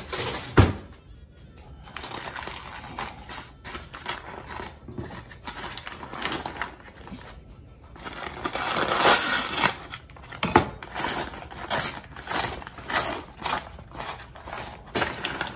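Grease-soaked butcher paper rustling and crinkling as it is peeled back by hand off a smoked brisket, in irregular bursts that grow busier in the second half, after a single sharp knock about half a second in.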